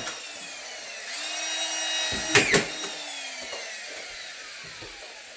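Collated drywall screw gun: the motor whine rises about a second in, a screw is driven home with a short loud rattle a little past halfway, then the motor winds down with a slowly falling whine.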